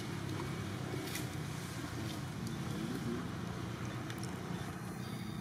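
Steady low background rumble with a few faint scattered clicks.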